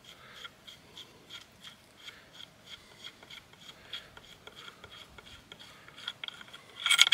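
Screw-in choke tube being unscrewed by hand from the muzzle of a side-by-side muzzleloading shotgun: faint, repeated scraping and ticking of metal threads turning, with a brief louder sound near the end. The chokes come out because their tight constriction would not let a wad be rammed down the barrel.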